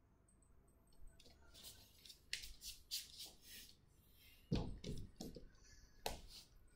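Faint sounds of a barefoot person exercising on a wooden floor: a few soft hissing rustles, then, in the second half, several dull thumps as hands and feet land on the floor.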